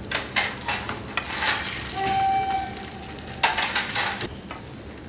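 An egg sizzling as it fries in a nonstick frying pan, with several short scraping rasps in the first second and a half and again past the middle. A steady tone with overtones sounds for about a second and a half in the middle.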